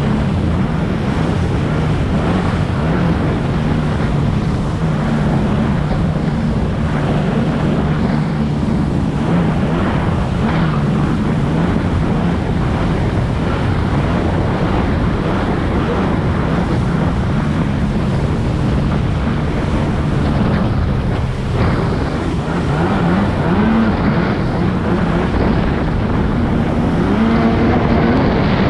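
Jet ski engine running steadily at speed under the rush of water and wind on the microphone. Near the end the engine's pitch rises and falls a few times as the throttle changes.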